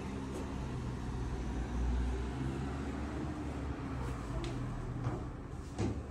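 Steady low rumble with a few short clicks near the end.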